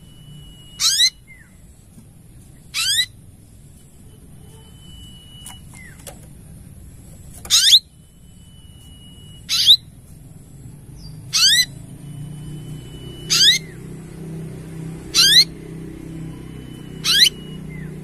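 Olive-backed sunbird ('kolibri ninja') repeating a short, shrill call about every two seconds, eight times, each call a quick run of rising whistled sweeps.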